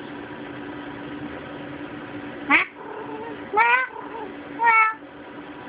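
Domestic cat meowing three times, short calls about a second apart.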